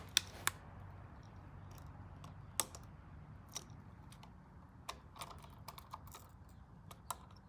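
Scattered light clicks and taps of small hard objects being handled, irregular and a second or so apart, over a faint low hum.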